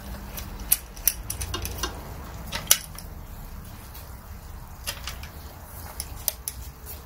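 A dozen or so light, irregular metallic clicks and taps as a steel bowl gouge is seated and clamped in a Tormek sharpening jig, its locking knob being turned by hand, over a faint low hum.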